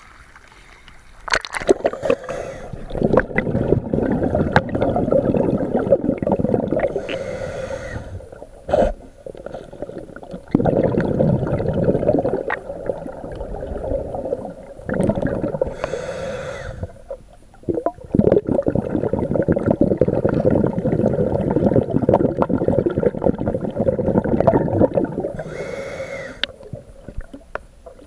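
Scuba regulator breathing heard underwater: long bubbling exhalations broken by short hissing inhalations, about three breath cycles in a slow, steady rhythm.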